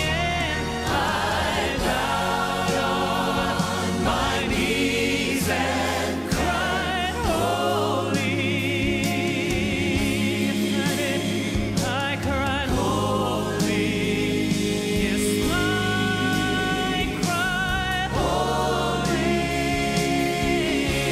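Gospel vocal group of men's and women's voices singing in harmony, with vibrato on long held notes.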